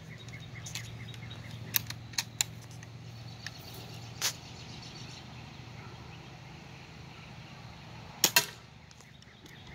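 BB gun firing: a few sharp pops with fainter clicks between them. A strong pop comes about four seconds in and a quick, loudest double pop just after eight seconds.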